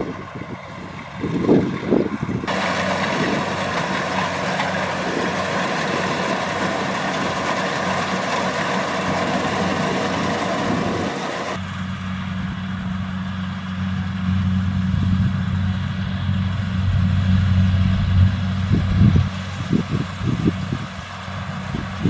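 Kubota DC-70 Plus rice combine harvester running as it cuts and threshes rice, a steady machine noise throughout. A full rushing wash holds for several seconds in the first half and stops abruptly at the cut, giving way to a steady low diesel engine hum. Wind buffets the microphone in gusts at the start and near the end.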